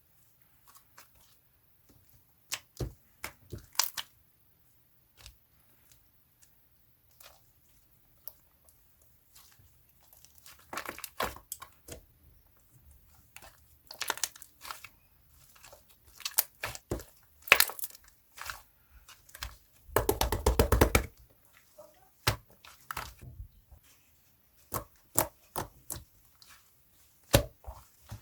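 Slime being mixed and kneaded by hand: irregular sticky pops, crackles and tearing sounds, with a dense run of rapid popping about twenty seconds in.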